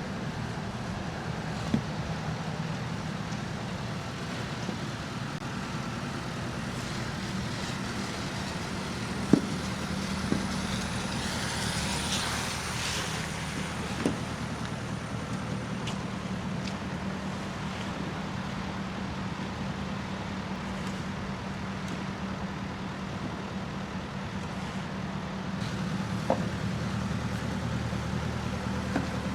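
Steady low hum of a motor vehicle engine running, with street traffic; a vehicle swishes past about twelve seconds in. A few sharp knocks stand out, the loudest about nine seconds in.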